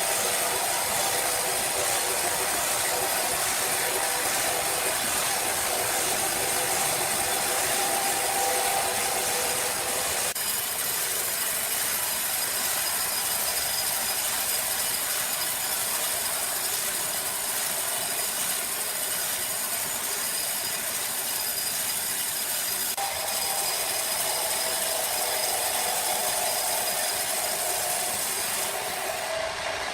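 Sawmill machinery running steadily, a continuous mechanical din with a strong hiss. The sound shifts abruptly about ten seconds in and again a little past twenty seconds.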